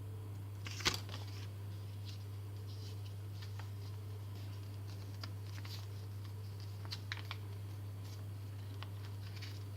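Small handling sounds of paper being stuck together with homemade flour-and-sugar glue: faint scattered ticks and rustles, with one sharp click about a second in, over a steady low hum.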